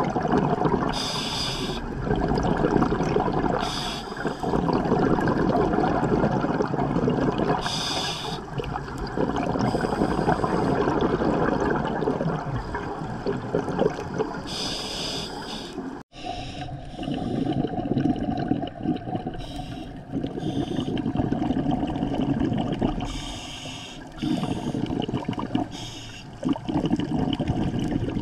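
Scuba regulator breathing heard underwater: a short hiss with each inhale every few seconds, and a rushing, gurgling stream of exhaled bubbles between them. The sound drops out for a moment about halfway through, then the same breathing resumes.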